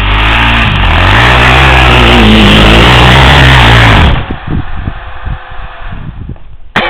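ATV engine running loudly, revving up about a second in and holding there, then cutting off suddenly about four seconds in. Quieter scattered knocks follow.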